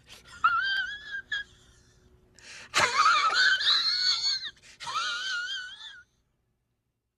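High-pitched wheezing laugh, a meme laugh sound effect, in three wavering, squeaky runs, the middle one the loudest; it stops about six seconds in.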